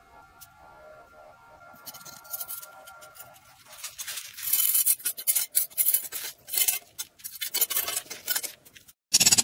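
A metal knife blade scraping and digging through packed casting sand to free freshly cast silver pieces. The irregular scratchy strokes start about two seconds in and grow loud and busy in the second half.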